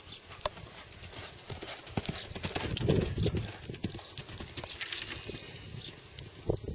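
Ridden horse's hoofbeats thudding on a sand arena, a steady run of strides that grows loudest about three seconds in as the horse passes close.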